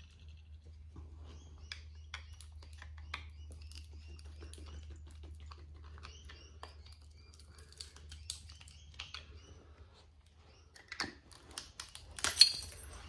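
Small clicks and scrapes of a screwdriver prying plastic and metal fins off a light ballast, then one loud, sharp metallic bang about twelve seconds in as a hammer strikes the ballast.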